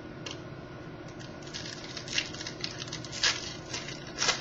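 Baseball trading cards being handled and flipped to the next card: a series of light clicks and rustles, the loudest about three seconds in and again near the end.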